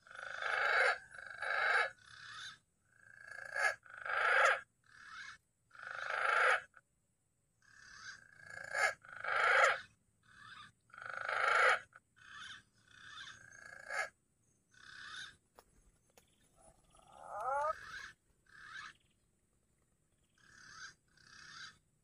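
Green pigeons (punai) calling: a run of short whistled phrases, one after another with brief pauses, a few sliding upward near the end. These are the calls used to lure punai to the lime-twig trap.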